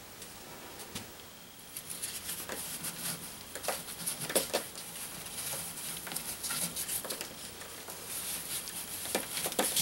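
Wet Thermix chimney insulation being packed and scraped into the gap around a stainless-steel stovepipe with a wooden paint stirrer and gloved hands: a steady gritty scraping with many small taps and clicks. It starts about two seconds in.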